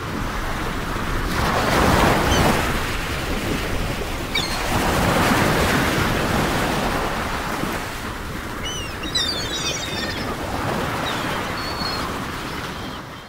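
Wind and water washing over open water, a steady rushing noise that swells and fades every few seconds, with a few faint high chirps.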